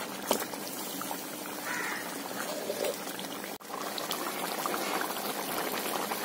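Thin chicken curry gravy bubbling at a hard boil in a wide metal pan as it reduces. There is a sharp knock of a metal slotted spatula against the pan near the start.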